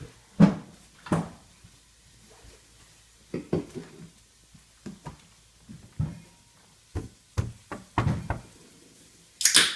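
Under-sink kitchen cabinet being handled: about a dozen irregular knocks and clunks of its doors and the things inside, with a brief, louder scraping rush near the end.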